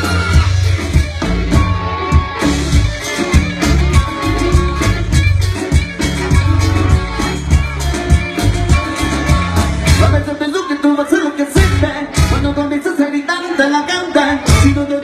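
Live rock band playing electric guitar, bass and drums, with singing. The bass drops out about ten seconds in, leaving guitars and drum hits.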